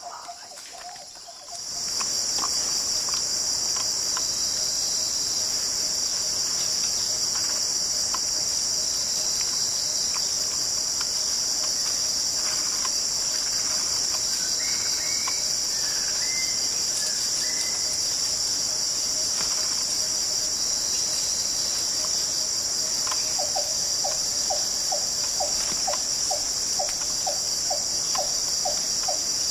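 A loud, steady, high-pitched insect drone that starts abruptly about two seconds in and holds without a break. A few faint bird calls come through around the middle, and near the end a run of short chirps repeats about twice a second.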